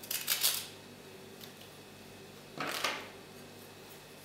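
A table knife scraping the cream filling off an Oreo cookie half held in the palm: two short scrapes, one at the start and one about two and a half seconds in.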